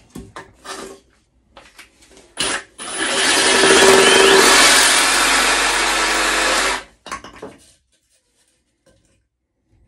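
A handheld power saw briefly triggered, then running steadily for about four seconds as it cuts through plastic plumbing pipe, stopping abruptly. Light clatter of handling comes before and after.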